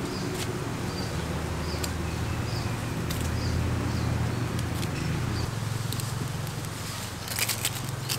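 Leafy plant stems being snapped and cut by hand: scattered sharp snaps and crackles, with a quick cluster of them near the end. Faint repeated chirps and a steady low hum run underneath.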